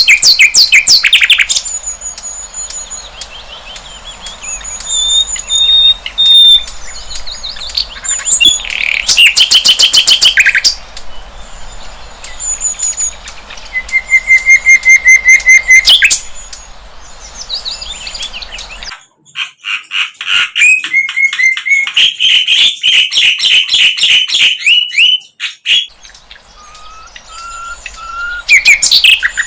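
Sikatan londo flycatcher singing a varied, loud song of high whistled notes, chirps and fast rattling trills, with runs of quick repeated notes.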